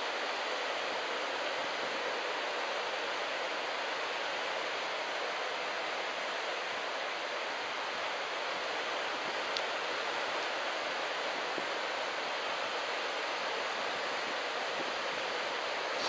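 Steady hiss of small surf breaking and washing onto a sandy beach, with no change in level.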